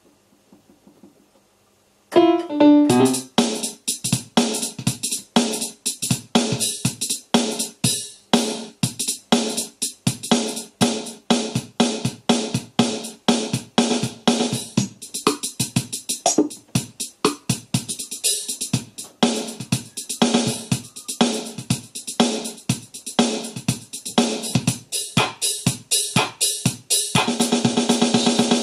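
A Casio CTK-541 electronic keyboard plays one of its built-in rhythm patterns through its own speakers: a drum-kit beat with bass drum and snare under pitched accompaniment notes. It starts about two seconds in with a short run of falling notes and changes to a fuller pattern with held tones near the end.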